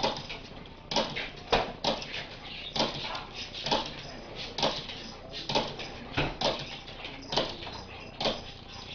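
Italian greyhound whimpering in short, breathy bursts that repeat about once a second, the sound of a dog impatient for its food.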